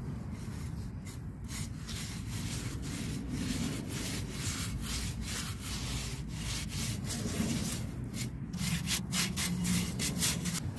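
Sponge scrubbing a thin mortar slurry onto a terracotta pot: rough, irregular rubbing strokes, coming faster near the end.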